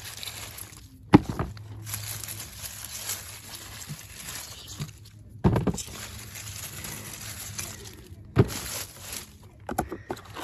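Rustling and handling noise as ripe tomatoes are picked from the plants, with three sharp knocks: about a second in, in the middle and near the end.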